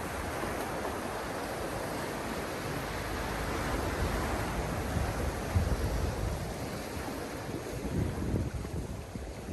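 Sea waves washing onto a beach in a steady wash of surf, with wind rumbling on the microphone and growing stronger about halfway through.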